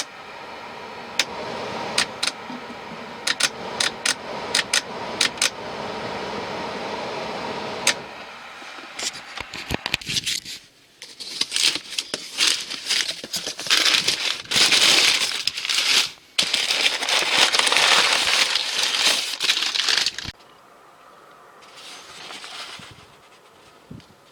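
Heater blower motor fan in a Daihatsu Hijet Cargo running with an abnormal noise: a steady hum broken by irregular sharp clicks. From about eleven seconds in it turns to a louder, harsh rattling and crackling, which drops away about twenty seconds in.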